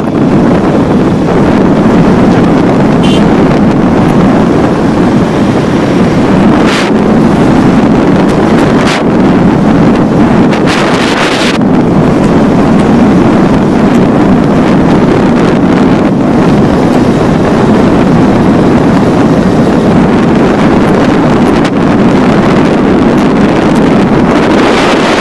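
Motorcycle riding along at speed: a steady engine drone under heavy wind buffeting on the microphone.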